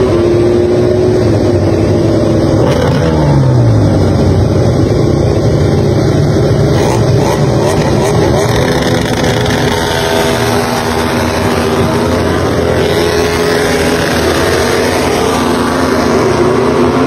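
Several Ducati MotoGP race bikes' V4 engines revving together at the start line, their pitches rising and falling over one another, then pulling away.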